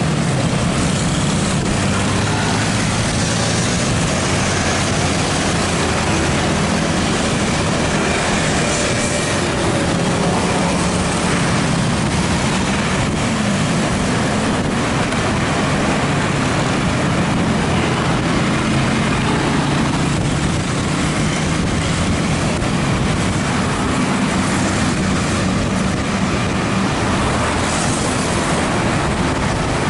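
Motorcycle riding in city traffic: a steady engine hum under a continuous rushing noise of wind and road. The level stays even throughout, with no sudden sounds.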